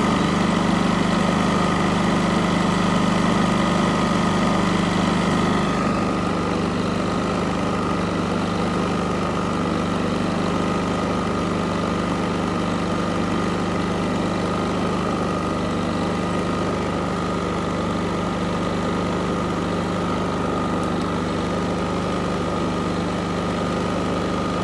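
Westinghouse iGen4500 inverter generator's single-cylinder four-stroke engine idling smoothly with a steady hum. It becomes a little quieter and duller about six seconds in, then runs on evenly.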